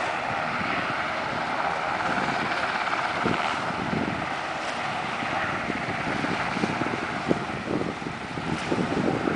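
Wind buffeting the microphone in uneven gusts over a steady mechanical drone.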